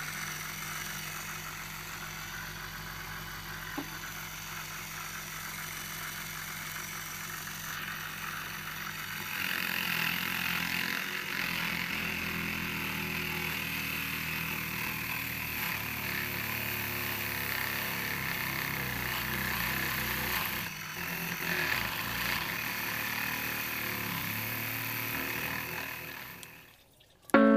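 Small DC motor running a homemade coconut grater, driving the grating drum through a belt, with a steady hum. From about nine seconds in it gets louder, with a rasping sound added as coconut flesh is pressed against the spinning drum. It stops near the end.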